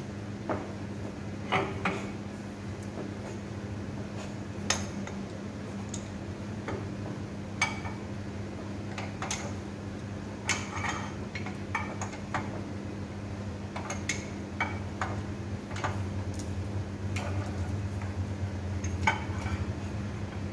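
Irregular sharp metallic clinks and taps as a hammer and a wrench work on the steel flange and coupling under a vertical electric motor, over a steady low hum.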